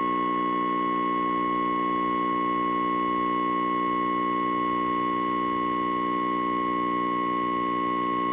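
Steady test tone with a buzz under it from the speaker of a 1969 Zenith 13A16 chassis tube television, fed by a signal generator: the typical Zenith buzz.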